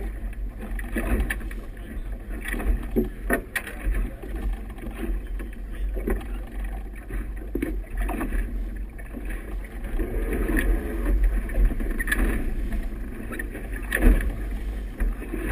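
Choppy water splashing and slapping against a moving boat's hull in irregular thumps, over a steady low wind rumble on the microphone.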